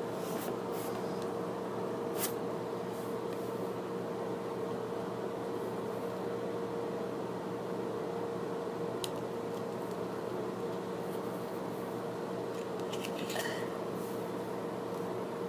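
Steady low hum, like a fan or appliance, with a few light clicks and taps from a small metal tin being handled: a sharp click about two seconds in, another about nine seconds in, and a short cluster near the end.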